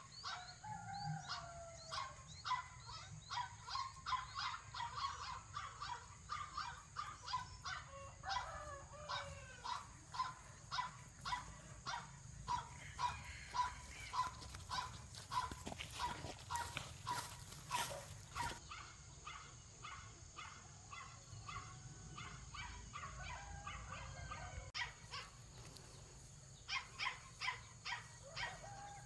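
A dog barking over and over in long runs, about two barks a second, with a few whining calls in between.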